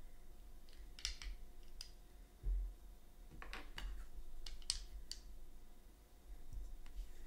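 Quiet scattered clicks and taps of small statue parts being handled and tried against each other, with a soft low thump about two and a half seconds in.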